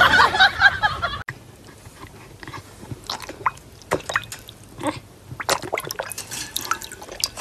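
A dog splashing water in a bowl with its mouth as it goes after a toy in the water: a scatter of small irregular splashes and drips. It is preceded in the first second by a louder, different sound that ends abruptly.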